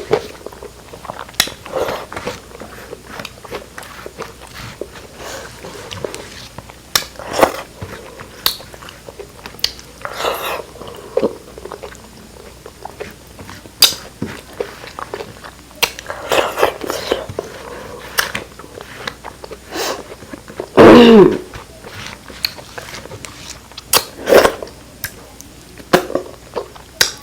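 Close-miked eating sounds: chewing and biting, with short, irregular mouth clicks. About 21 seconds in there is a brief, louder voice sound that falls in pitch.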